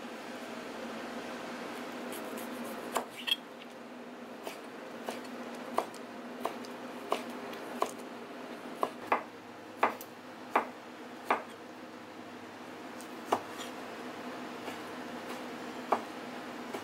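Kitchen knife chopping cooked octopus tentacles on a white plastic cutting board: irregular sharp knocks of the blade hitting the board, about one to two a second at the busiest, over a steady background hum.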